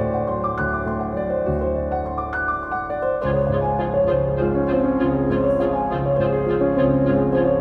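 Background music: a piano melody that turns into a fuller arrangement with a steady beat about three seconds in.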